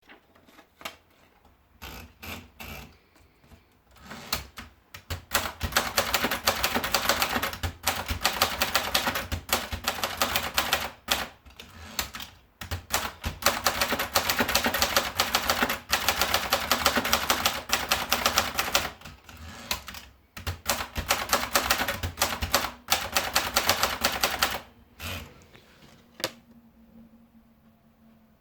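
Swissa Jeunesse portable manual typewriter being typed on: a few scattered keystrokes, then fast, continuous typing from about four seconds in, broken by two short pauses, ending a couple of seconds before the end.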